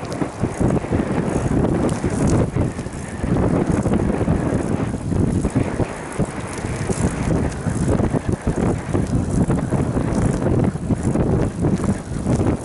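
Wind buffeting the microphone of a camera on a moving bicycle, a loud rushing rumble that gusts up and down.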